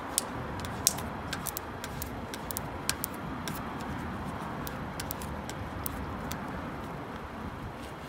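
Wind rushing and buffeting steadily, with scattered light clicks and taps throughout, the sharpest about a second in.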